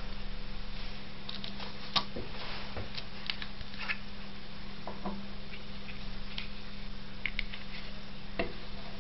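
Scattered light clicks and taps from a tealight being handled: the wax pulled out of its thin aluminium cup and a pointed tool set against the cup. A steady low hum runs underneath.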